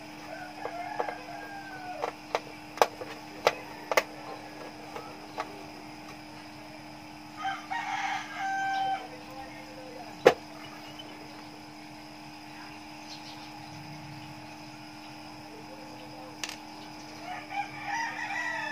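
A run of sharp clicks and knocks from a DVD player's metal case and a screwdriver being handled, with one loud knock about ten seconds in. A rooster crows once in the background near the middle, under a steady electrical hum.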